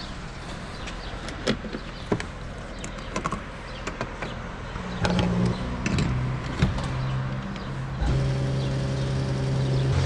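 Several sharp clicks and knocks from handling the car's filler cap and the fuel nozzle. About halfway through, a filling-station fuel dispenser's pump motor starts and hums steadily, growing louder about three seconds later as diesel is pumped into the car.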